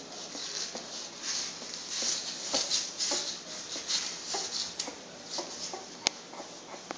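Newborn American Bulldog puppies nursing: soft suckling noises and brief small squeaks, with a sharp click about six seconds in.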